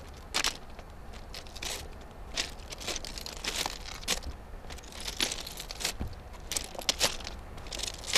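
Footsteps crunching on railroad track ballast gravel, irregular, about one or two a second, over a low steady rumble.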